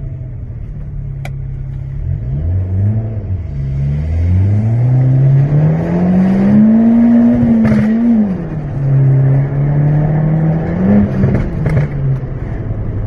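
Stage 1 tuned Fiat 500 Abarth's turbocharged 1.4-litre four-cylinder accelerating. The engine pitch climbs steadily for several seconds, then falls sharply about eight seconds in as a sharp crack sounds from the exhaust. It settles to a steady note, then gives a brief rev near the end with another crack.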